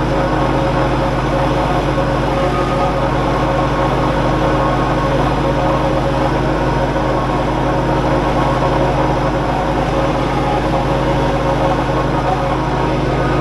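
John Deere lawn tractor's engine running steadily.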